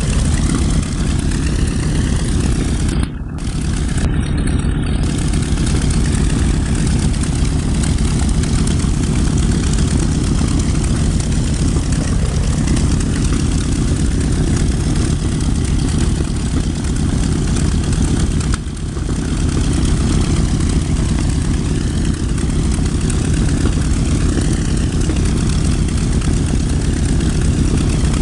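Piston engines of a World War II twin-engine bomber running steadily at low power on the ground: a loud, even, low propeller drone.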